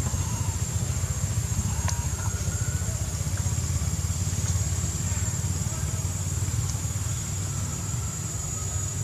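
Steady low rumble with a constant high-pitched whine above it and a few faint ticks.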